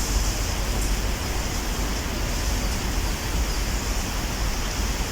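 Steady rushing noise with a heavy, fluttering low rumble.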